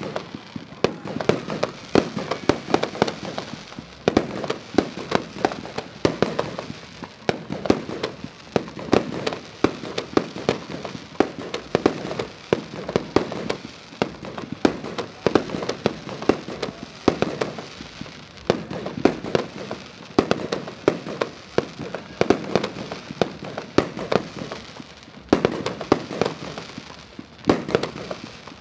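Fireworks and firecrackers going off in a dense, continuous barrage: many sharp bangs a second, overlapping one another with no pause.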